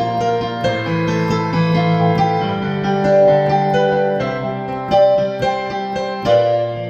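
Instrumental piano passage in a worship song, sustained chords and melody notes changing every second or so, with no singing.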